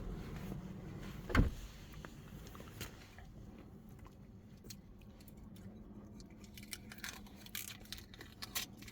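One sharp knock, then scattered light clicks and rattles of small hard parts or tools being handled during work inside a car.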